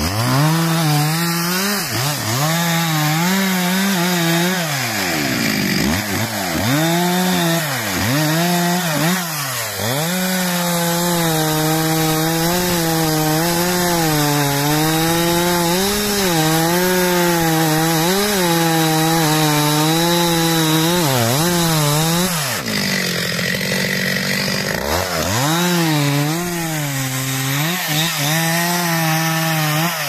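Stihl MS 361 two-stroke chainsaw revved in short bursts, dropping back between them, then held at high revs for about twelve seconds with its pitch wavering as it saws through wood. Its revs fall off briefly about two-thirds of the way through, then climb again for more cutting.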